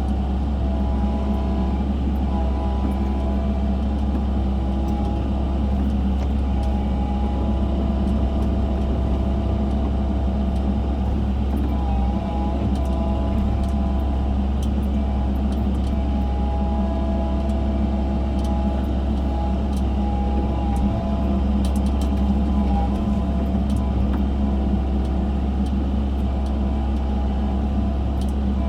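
Excavator's diesel engine running steadily under work, a constant low hum with a few faint clicks.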